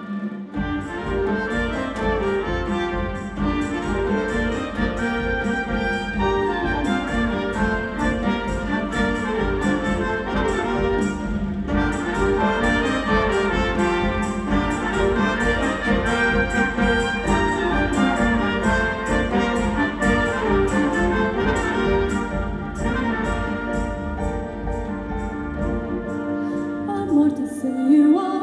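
Mixed ensemble of strings, brass and percussion playing an instrumental passage over a fast, even low pulse, which stops near the end.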